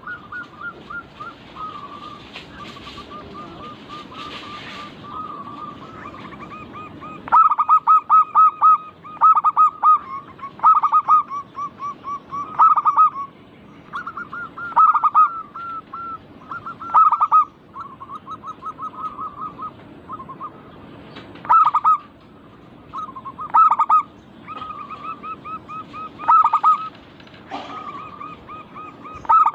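Zebra doves (perkutut) cooing: loud phrases of rapid, staccato cooing notes, repeated every second or two from about seven seconds in, over a fainter continuous cooing trill from another dove.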